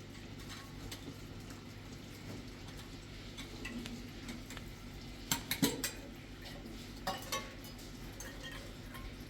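A few sharp clinks and knocks, like hard objects striking each other: a quick cluster about five seconds in and two more a little later, over a steady low hum.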